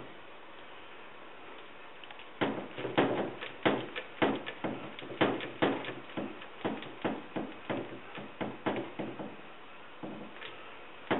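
Clicks and knocks from a white plastic jug being worked by hand, a quick irregular run of several a second starting about two seconds in and stopping after about seven seconds, with one more sharp knock at the end.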